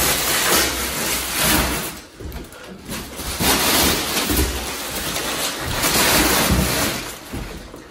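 Plastic packaging and bubble wrap rustling and crinkling as it is gathered up and carried away. The rustling lulls briefly about two seconds in and again near the end.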